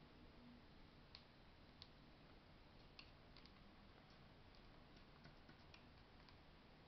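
Faint, irregular clicks of a cockatiel's beak picking and cracking seeds in a small plastic food dish, about a dozen in all, the sharpest two in the first two seconds.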